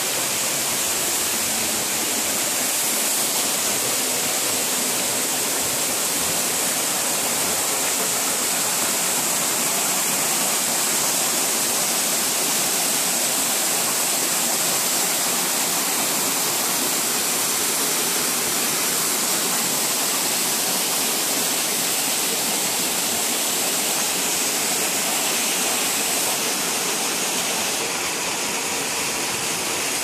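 Waterfall rushing steadily: water pouring over rock into a pool, a constant even roar of falling water.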